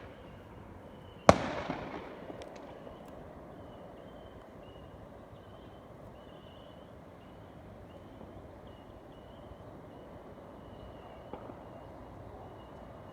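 A single loud firework bang about a second in, echoing away with a few faint crackles. A much fainter distant pop follows near the end.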